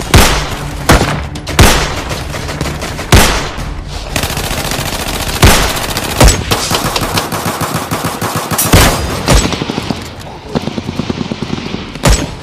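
Gunfire in a shootout: about nine loud single shots spread out, with rapid automatic fire crackling between them from about four to nine seconds in.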